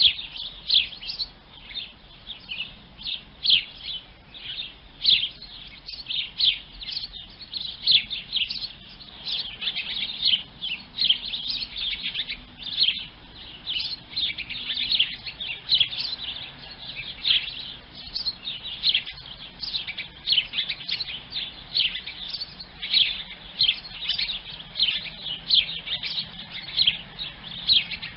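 Sparrows chirping: a dense, unbroken run of short, high chirps, several a second and often overlapping.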